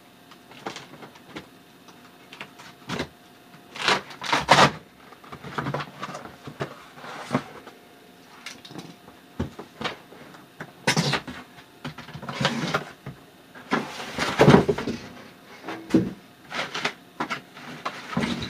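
Cardboard packing box being opened and handled: flaps and inner cardboard pieces scraping, rustling and knocking in irregular bursts, with plastic wrap rustling near the end.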